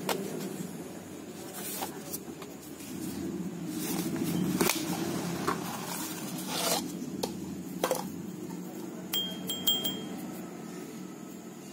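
A plastic storage jar and a steel concrete hole saw being handled: scattered clicks and knocks of the plastic jar and its lid, a short scrape as the hole saw slides out, then a few light metallic clinks with a brief ring near the end. A steady low hum runs underneath.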